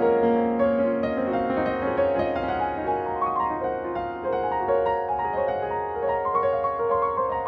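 Solo piano music in D-flat major played on a Yamaha Clavinova digital piano: held chords under a melody line, with new notes entering every half second to a second.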